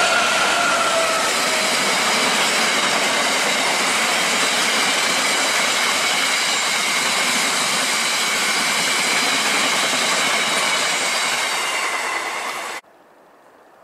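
Freightliner Class 66 diesel locomotive passing at speed with a stone train, its engine tone falling slightly as it goes by, then a long steady rush of the wagons' wheels on the rails with a high ringing over it. The sound cuts off suddenly near the end.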